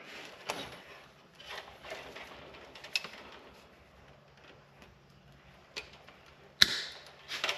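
Insulated electrical wires rustling as they are handled, with scattered sharp clicks of wire cutters working on them; the loudest click comes about two-thirds of the way through.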